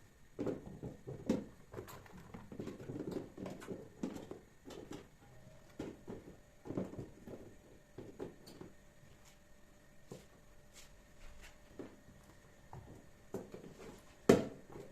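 Kitchen items being handled: scattered light knocks, clicks and rustles, with one sharper knock near the end.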